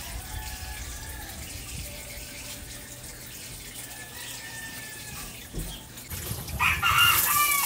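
Water running and splashing while a dog is being bathed, with a few faint thin tones over it. Near the end comes a louder, higher-pitched sound lasting about a second.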